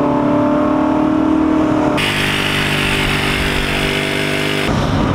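Motorcycle engine running steadily while riding, with rushing wind and road noise. The sound changes abruptly about two seconds in and again near the end, where separate riding clips are cut together.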